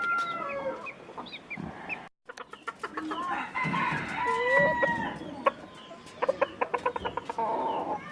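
Chickens clucking, with a rooster crowing, in a pen full of birds; the sound breaks off briefly about two seconds in.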